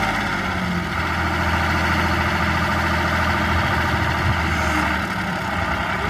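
Heavy diesel engine running steadily, with a constant low note that drops away about five seconds in.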